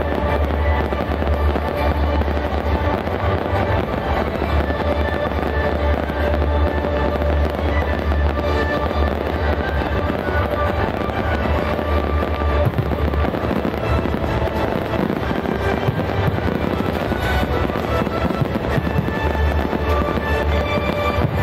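Fireworks finale: a continuous barrage of shells bursting with bangs and crackles, over loud music from the show's sound system.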